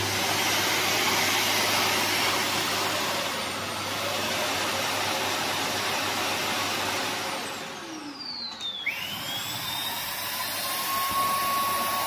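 Samsung Bespoke Jet AI clean station running its loud self-emptying cycle, sucking the dust and hair out of the stick vacuum's bin into the station's bag. About seven seconds in the roar eases and a whine falls in pitch. A new whine then rises and settles into a steady high tone.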